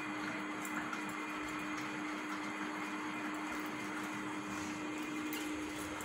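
Steady hum with an even hiss, like a room appliance running, and a few faint ticks.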